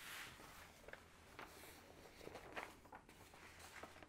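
Faint rustling and crackling of a diamond painting canvas and its paper cover sheet being peeled back and handled, with a brief rustle at the start and scattered small crackles after.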